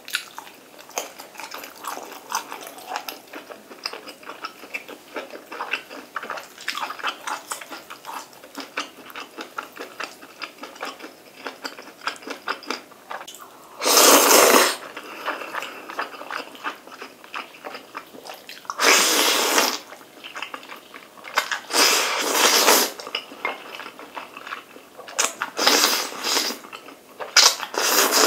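Close-up mouth sounds of a person eating black bean sauce instant noodles: continuous wet chewing and smacking clicks, with about five loud long slurps of noodles from the middle on.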